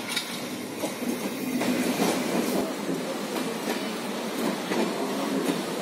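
Electric passenger train running along the track, a steady rumble of wheels on rail with irregular clicks and clacks over rail joints. The sound steps up and changes about a second and a half in.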